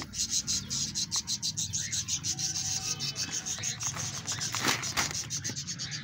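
Mixed bird seed pouring from a plastic bag into a terracotta clay bowl: a fast, dense rattle of hard seeds landing on seed and clay.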